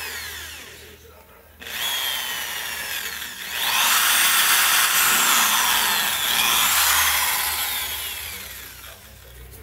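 Electric drill with a twist bit boring a hole through the rim of a plastic plant pot. The motor whine rises and falls in pitch as the trigger is worked. A loud grinding rasp as the bit cuts through the plastic runs from about four to eight seconds in, then fades.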